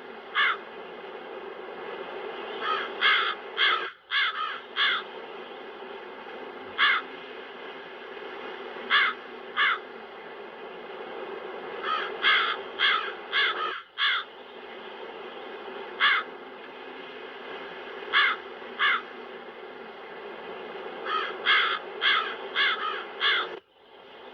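Crows cawing in short runs of one to five harsh caws every few seconds over a steady wind sound effect. The wind cuts out for a moment three times.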